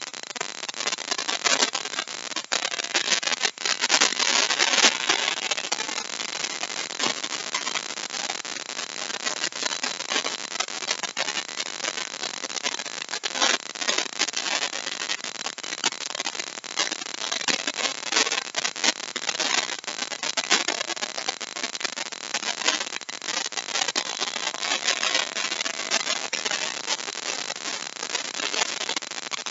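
Handheld router running continuously while its bit cuts a deep mortise into wood: a steady dense cutting noise with a crackly edge.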